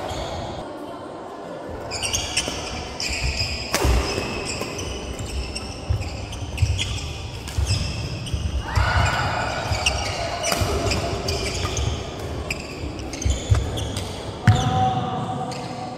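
Badminton doubles rally in a large hall: rackets striking the shuttlecock in quick, irregular hits, with shoes squeaking and feet thudding on the wooden court. It starts about two seconds in, breaks off briefly near the middle as a point ends, then resumes.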